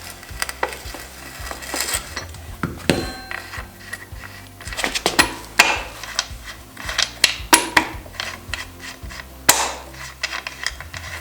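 Irregular metallic clinks, taps and clatter of hand tools and loose metal parts being handled while a dirt bike is taken apart, heard over background music.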